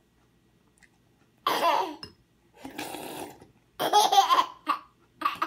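A toddler laughing in a string of short bursts, starting about a second and a half in.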